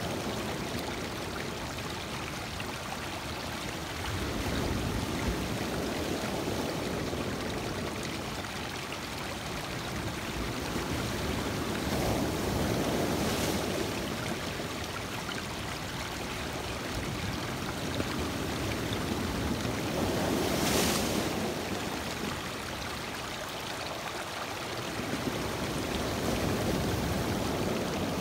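Lake Michigan surf breaking on a rocky shore, with water rushing and trickling over stones close by. The wash swells and fades, surging about four times.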